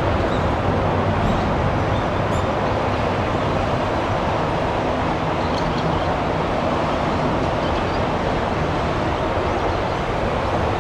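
Steady jet engine noise from a Boeing 787-9, an even rushing drone that holds level throughout, with a few faint high chirps in the first couple of seconds.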